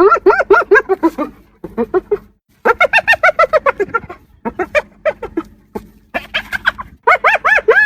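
Spotted hyena giggling: bouts of rapid, high-pitched notes, each rising and falling, about eight a second, broken by short pauses.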